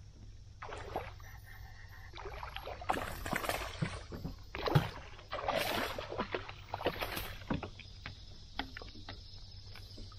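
Hooked smallmouth bass splashing at the side of a kayak as a landing net is swept through the water to scoop it, in irregular surges, followed by a run of light clicks and knocks against the kayak near the end.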